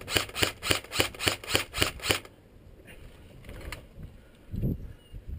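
Airsoft gun firing a rapid string of about a dozen sharp shots, about five a second, which stops a little over two seconds in. A low thud follows near the end.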